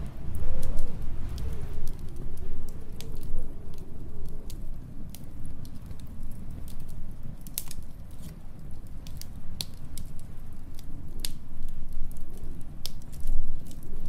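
Wood fire crackling with scattered sharp pops over a low, rumbling storm wind. The wind howls with a wavering whistle in the first few seconds and again near the end.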